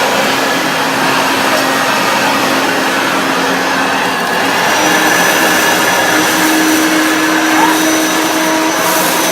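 Hoover Turbopower 1 Freedom upright vacuum cleaner running steadily, set to its lowest power setting. Its motor tone steps up slightly about halfway through.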